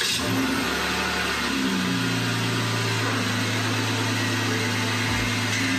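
Jeep Wrangler JK's 3.6-litre Pentastar V6 idling just after starting, heard from beneath the front axle while the front wheels are steered; the engine note shifts about two seconds in.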